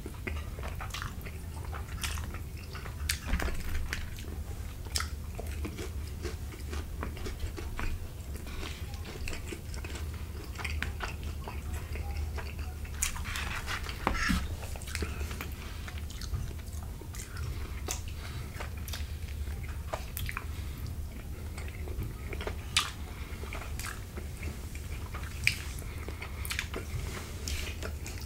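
Close-miked chewing of creamy chicken fettuccine Alfredo: wet chewing with many short, sharp mouth clicks, over a steady low hum.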